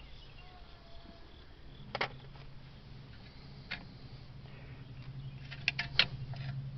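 Sharp metallic clicks and clinks of a screwdriver working at the springs and hardware of a drum brake. There are single strikes about two seconds in and near the middle, then a quick cluster of clicks near the end, over a low steady hum.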